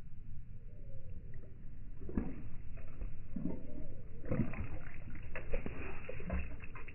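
A Saint Bernard puppy lapping water from a plastic bowl, with irregular wet splashes and drips, then licking its chops as slobber drips back into the bowl. The splashing and smacking get busier about four seconds in.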